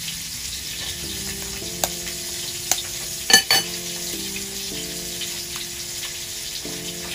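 An egg tapped against the rim of a ceramic bowl to crack it: four sharp taps between about two and three and a half seconds in, the third the loudest. Under them are soft background music with held notes and a steady hiss.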